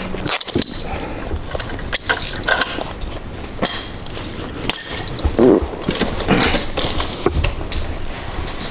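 Irregular clicks, clinks and light rattles of hard objects being handled and moved about, with no engine running.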